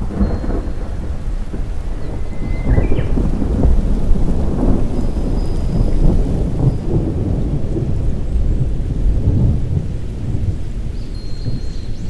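Rolling thunder over rain: a deep rumble sets in suddenly at the start, swells over the first few seconds and slowly eases off toward the end.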